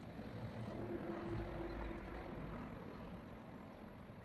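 A motor vehicle passing at a distance: its engine noise swells about a second in, then fades away.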